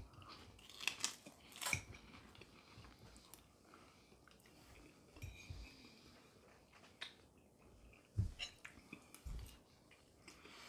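Faint mouth sounds of a man chewing a mouthful of chicken chow mein noodles, with scattered soft clicks and two low thumps in the later part.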